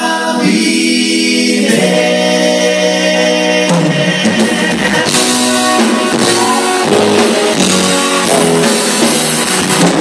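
Male vocal harmony group singing live with a band, holding long sustained chords in close harmony over piano and drums.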